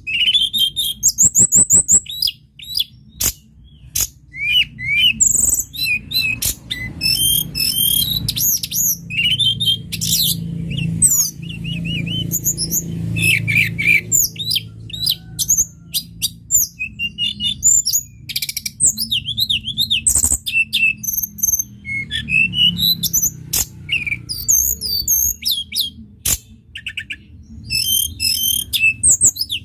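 Tledekan gunung songbird singing a continuous, fast and varied song of chirps, whistled phrases and trills, broken by sharp clicks, over a steady low hum.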